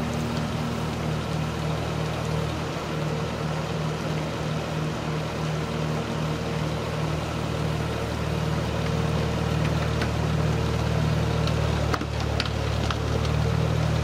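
Bobcat skid-steer loader's diesel engine running steadily under load as the lift arms rise, getting a little louder in the second half.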